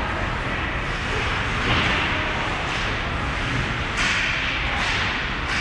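Ice hockey rink noise: skates and sticks scraping the ice over a steady arena hum, with sharp scrapes or strikes about two and four seconds in.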